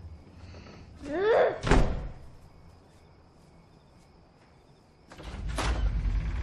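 Trailer sound effects: a short rising creak, then a hard door slam just before two seconds in. About five seconds in, a deep low boom with a sharp hit comes in and runs on.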